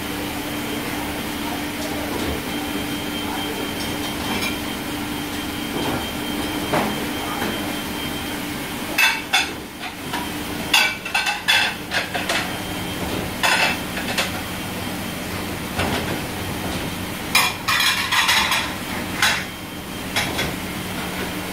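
Metal kitchenware clattering in two flurries of knocks with a ringing edge, one about halfway through and another near the end, over a steady mechanical hum.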